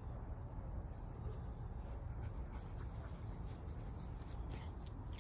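Outdoor background: a steady low rumble of wind on the phone's microphone, with a steady high insect drone and a few faint ticks.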